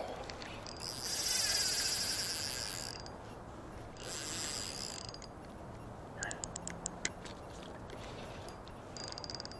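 Spinning fishing reel ratcheting and whirring in bursts while a hooked salmon is fought: a long loud burst early, a shorter one in the middle and a brief one at the end. A quick run of about six clicks comes about two-thirds of the way through.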